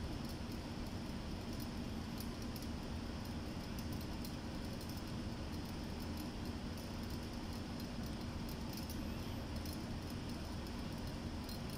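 Steady background hum and hiss of a ship's bridge with its equipment running, a constant low drone with a steady mid-low tone and no distinct events.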